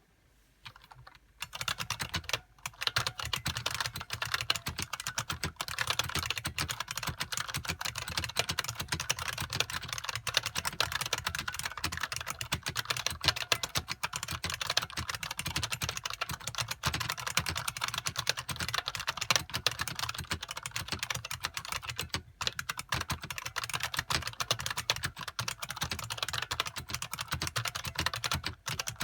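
Fast, continuous typing on an IBM Model M SSK keyboard from 1987: a dense stream of sharp clacks from its buckling-spring keys, starting about a second and a half in.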